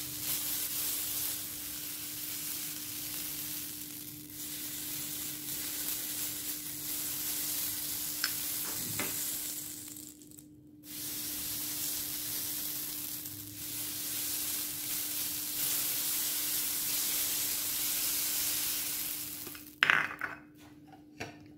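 Butter sizzling and hissing as it is brushed over a hot seven-cavity non-stick pancake pan, with a steady low hum underneath. The sizzle drops out briefly about ten seconds in, and a few sharp clicks come near the end.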